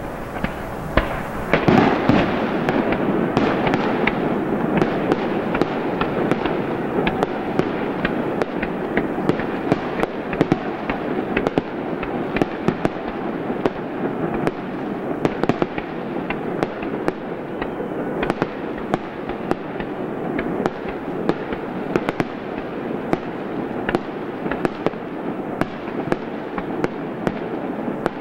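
Aerial fireworks show: shells bursting in quick succession, with a heavy boom about two seconds in, over a steady rumble dotted with many sharp pops and crackles.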